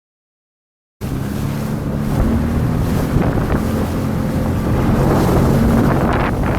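Dead silence for about a second, then a jet ski's engine comes in suddenly, running steadily at speed, with wind buffeting the microphone.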